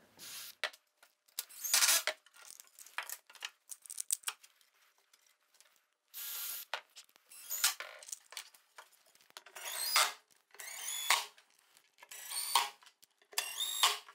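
Cordless drill-driver driving screws into multiplex plywood in a run of short bursts, each a brief high motor whine. Clicks and knocks of handling come between them, mostly in the first half.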